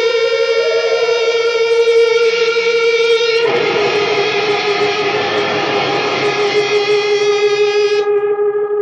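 Electric guitar drone through effects: a sustained note with a pitch glide that rises and falls back about a second in. At about three and a half seconds a harsher, noisier layer suddenly joins the held note, and near the end the bright top of the sound drops away.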